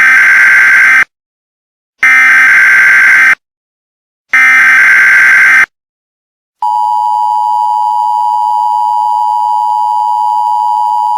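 Emergency Alert System alert opening: three loud bursts of SAME digital header data, each about a second long with a short pause between, then the steady two-tone EAS attention signal starting about six and a half seconds in.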